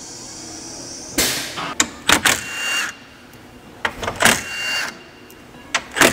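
Cordless driver running in four short bursts, each starting suddenly with a steady high whine, as it backs out bumper fastening screws.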